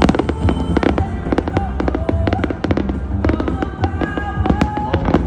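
Fireworks going off in rapid, irregular succession: many sharp bangs and crackles, with music playing underneath.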